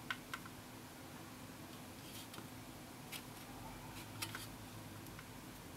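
Faint scattered clicks and light taps from a sheet-metal power-supply case being handled and turned in the hands, over a steady low room hum.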